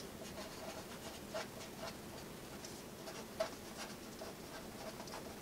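Felt-tip marker writing on paper: a run of short, irregular pen strokes, with a sharper tap about three and a half seconds in.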